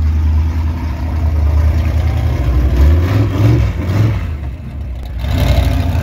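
Ford pickup monster truck's engine running with a deep low note, revving up a little around three seconds in, easing off briefly near five seconds, then picking up again.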